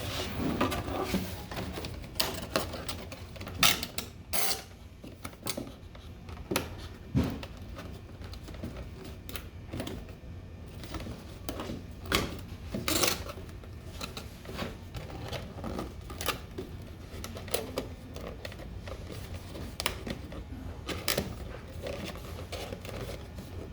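Cardboard box being folded by hand, its flaps worked over and tucked into slots: irregular creasing, scraping and sharp taps. A low steady hum runs underneath.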